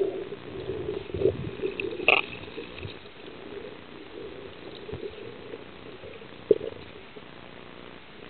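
Muffled underwater sound of water moving and bubbling against a camera housing, with a few sharp knocks, the loudest about six and a half seconds in.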